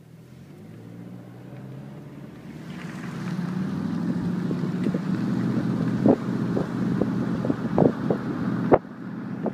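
Car engine and road noise heard from inside the cabin, swelling over the first few seconds as the car gathers speed and then holding steady, with wind rushing over the microphone. A few sharp knocks come in the second half.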